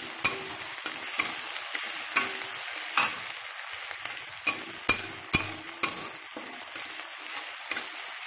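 Onions, ginger, garlic and green chillies sizzling in hot oil in a metal wok, stirred with a metal spatula that scrapes and clinks against the pan. The strikes come irregularly, about one a second, bunching together about five seconds in.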